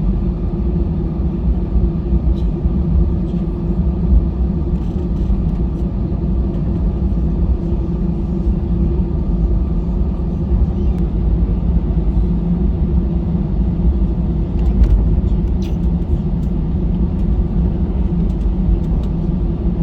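Cabin noise of an Airbus A320-214 taxiing to the runway: a steady low rumble from the wheels and the idling CFM56-5B engines, with a constant hum over it and a few faint clicks.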